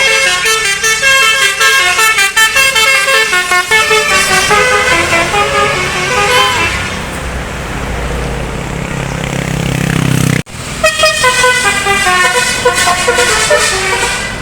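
Tour bus's Basuri multi-tone telolet horn playing a rapid melody of short notes, loud, over the bus's engine. The horn fades about 7 s in as a low engine rumble grows, then after an abrupt break the horn melody starts again.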